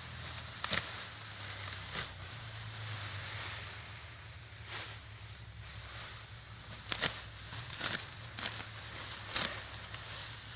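Rice stalks being cut by hand in the paddy, with dry straw rustling and irregular crisp snaps and clicks over a steady high hiss.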